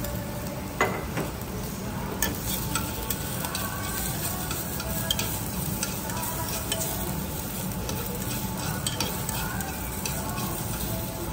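Sliced onion and garlic sizzling in a black ceramic pot on an induction hob while being stirred. The utensils click against the pot now and then; the sharpest click comes about a second in.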